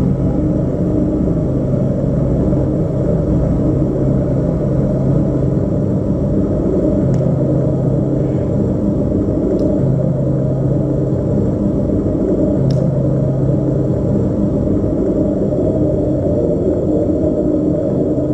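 Low, dense drone from the dance piece's score, with a deep steady tone that drops out briefly every few seconds. A few faint ticks sound over it.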